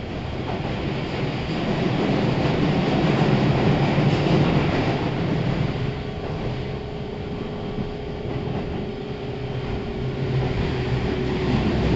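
Keihan 3000 series electric train running, heard from inside the passenger car: wheel-and-rail rumble with traction motor hum. It swells over the first few seconds, then eases about six seconds in, when a steady hum tone sets in.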